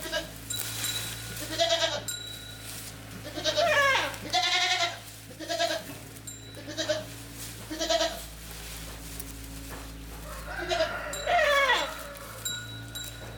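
Goats bleating: about seven separate wavering calls, each under a second, over a steady low hum.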